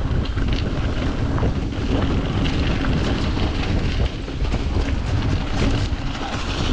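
Wind buffeting the microphone while a mountain bike rolls fast over wet dirt and gravel, its tyres hissing on the wet surface, with frequent short clicks and rattles from the bike over the bumps.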